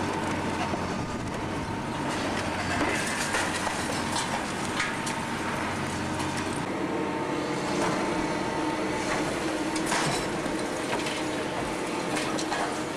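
Liebherr 944 demolition excavator working: its diesel engine and hydraulics run steadily with a whine, while the shear cracks and tears into concrete and debris, with sharp clatters scattered throughout.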